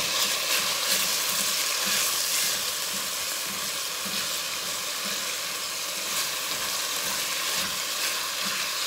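Ground turkey sizzling in hot oil in an enamelled Dutch oven while a wooden spoon breaks it up and stirs it, the spoon's strokes recurring about twice a second under a steady sizzle.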